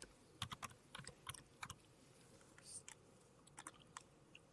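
Near silence: quiet room tone with a scattering of faint small clicks, most of them in the first two seconds.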